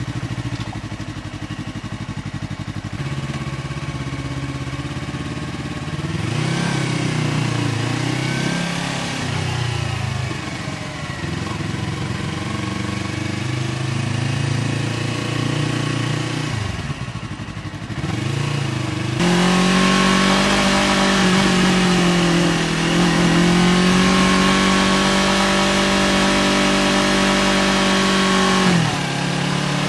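Yamaha R3's 321 cc parallel-twin engine breathing through an SC Project aftermarket exhaust while riding. It revs up and down through the gears, then holds steady, high revs for about ten seconds and drops off sharply near the end.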